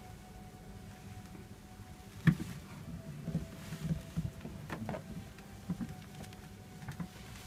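Handling noise from a massage towel being lifted and drawn over a person's legs: soft thuds and rustles, with one sharp knock about two seconds in and a few lighter taps after it.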